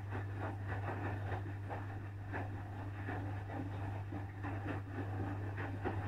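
Asko front-loading washing machine on its wash cycle, the drum tumbling the laundry: a steady low hum under irregular swishes and soft thuds from the turning load.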